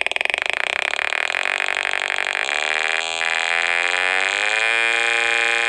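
Audio signal of a magnetic-field meter: rapid clicking merges into a continuous buzzing tone that steps up in pitch twice, then holds steady. The rising pitch tracks a climbing field reading near a plugged-in clock radio.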